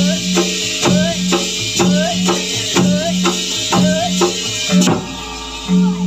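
Dongkrek dance accompaniment: drums struck in a steady beat of about two strokes a second, each stroke with a short rising pitch bend, over a repeating low tone. The beat drops back for about a second near the end and comes in again with a loud stroke.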